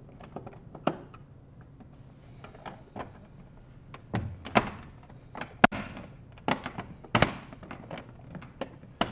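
Screwdriver turning the screws of a two-gang plastic wall-plate adapter, with small faint clicks, then a screwless plastic cover plate being pressed and snapped onto it: a series of sharp plastic clicks and knocks, the loudest about seven seconds in.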